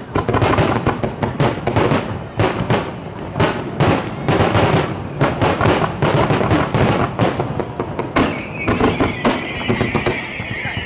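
Fireworks display going off: a rapid, dense run of bangs and crackles from aerial shells and ground-launched fountains. About eight seconds in a high whistle begins, slowly falling in pitch.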